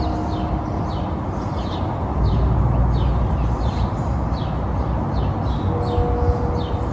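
A small bird chirping over and over, short falling chirps about two a second, over a steady low rumble of background noise. A brief steady tone sounds near the end.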